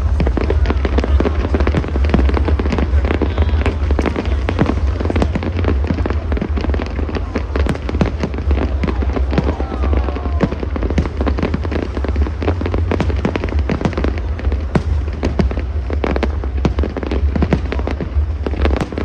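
Aerial fireworks display: shells bursting in rapid succession, a dense run of sharp cracks and pops over a constant deep rumble of booms.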